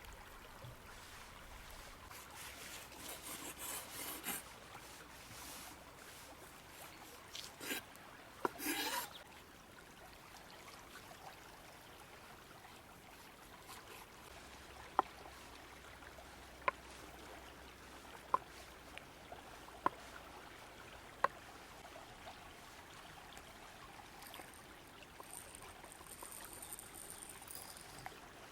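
A river flowing steadily and softly. Over it come a few bouts of rustling handling, then five sharp taps about a second and a half apart, and a thin high-pitched sound near the end.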